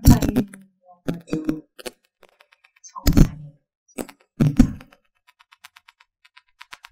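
Knocks and rustles on a handheld microphone, four short bursts in the first five seconds, followed by a run of faint, rapid ticks near the end.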